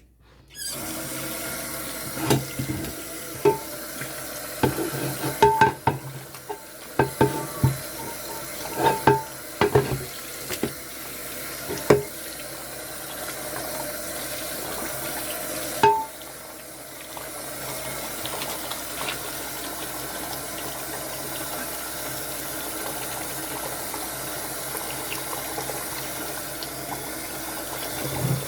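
Water running steadily from a tap into a sink, with hard items knocking and clinking against each other in the sink during the first half or so.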